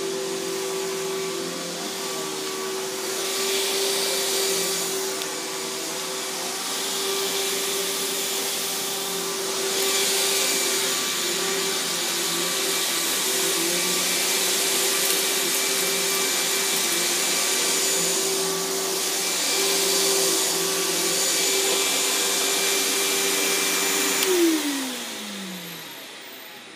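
Riccar 10-amp bagged vacuum cleaner running steadily, its rushing airflow swelling and easing several times over the carpet. Near the end it is switched off and the motor winds down with a falling whine.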